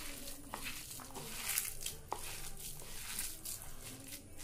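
A hand squishing and kneading a damp mixture of grated potato, chopped onion, spices and gram flour in a bowl: irregular soft squelching and rustling, with a few short ticks.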